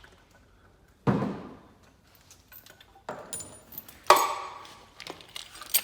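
Metal tools and engine parts clinking and clattering as they are handled and set down: four separate knocks, the loudest about four seconds in.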